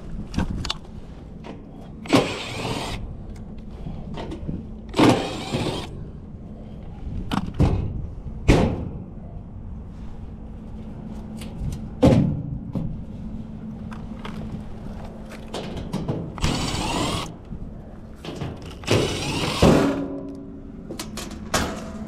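Cordless power driver backing out the sheet-metal screws of a packaged heat pump's access panel, in about seven short whirring bursts, with a steady low hum underneath.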